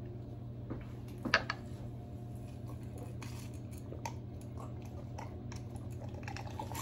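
Quiet sipping from glasses of iced mixed drink over a steady low hum. Small clinks of glass and ice run through it, with one sharper clink just over a second in.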